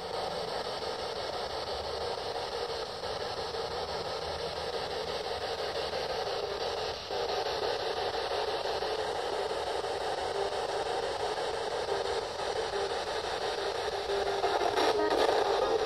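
A steady, static-like hiss with almost no low end, swelling slightly near the end.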